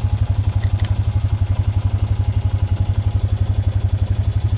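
The 2017 Honda Pioneer 500's single-cylinder engine idling steadily, with an even low pulse of about ten beats a second. A faint click comes about a second in.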